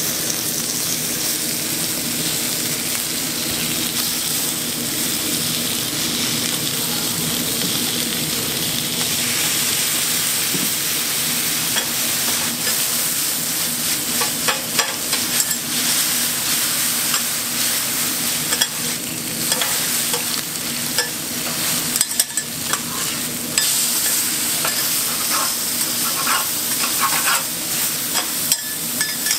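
Pork belly slices and yakisoba noodles sizzling on a hot flat-top griddle. From about twelve seconds in, metal spatulas scrape and clack on the griddle as the noodles and bean sprouts are tossed.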